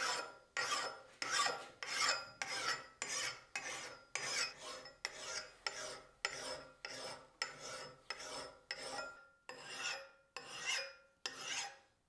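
Hand file stroking across the hardened steel edge of a hand-forged bearded axe, a steady rhythm of rasping strokes about three every two seconds, each with a faint metallic ring. This is the final filing that raises a burr along the edge before sanding.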